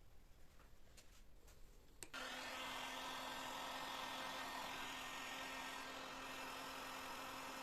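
An electric power tool switches on about two seconds in and runs steadily, a constant motor hum under a even rushing noise; a few faint clicks before it starts.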